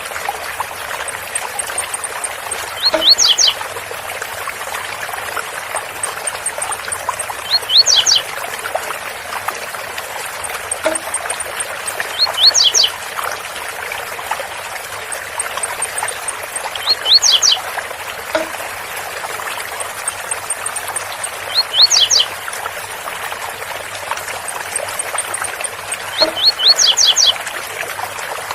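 Blue-black grassquit (tiziu) singing its short 'zel zel' song, repeated six times at an even spacing of about four and a half seconds, over a steady rush of waterfall water.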